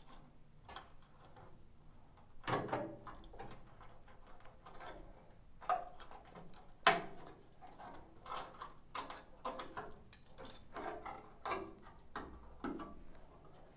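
Rusted sheet steel of a VW bus's lower A-post being picked at and broken off by a gloved hand: scattered small cracks, scrapes and clicks, with two louder metallic clinks about six and seven seconds in.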